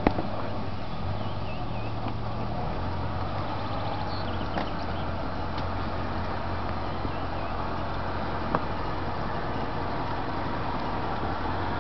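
Land Rover Defender's engine running steadily at low revs as the vehicle crawls slowly over a log bridge, with three sharp knocks, just after the start, about halfway through and later on.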